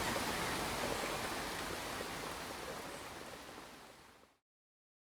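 Steady rain falling, an even hiss that fades out and ends about four seconds in.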